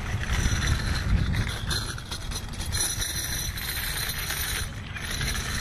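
Steady low rumble of a car's running engine and road noise, heard from inside the cabin.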